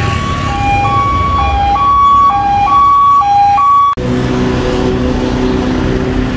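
A two-tone hi-lo siren switching evenly between a high and a low note, about one pair a second, over street traffic rumble; it cuts off abruptly after about four seconds. Then a steady low hum with traffic noise.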